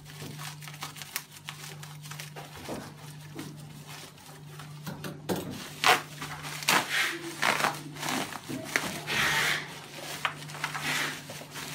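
Plastic wrapping crinkling and rustling as a keyboard is unwrapped by hand, in sharp crackles that start about halfway through, over a steady low hum.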